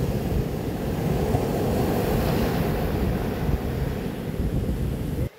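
Wind buffeting the microphone at the seashore, a steady low rumble that cuts off suddenly near the end.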